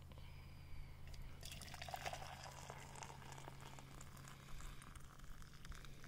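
Tea poured in a thin stream from an enamel pot into a steel canteen cup, a faint trickling splash that starts about a second and a half in and keeps on.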